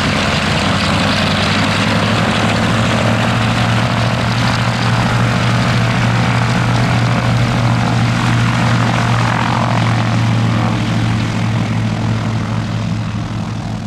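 Radial aircraft engines running steadily at taxiing power, giving a continuous, even propeller drone that eases off slightly near the end.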